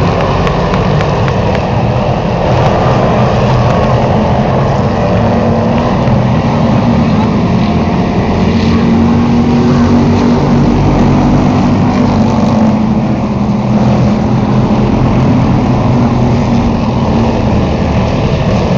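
Charger-class stock cars racing in a pack, engines running hard at speed in a loud, continuous drone.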